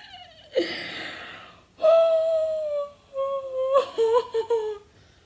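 A woman's embarrassed laughter: a breathy gasp, then a high, drawn-out squealing whine that breaks up into short choppy laughs near the end.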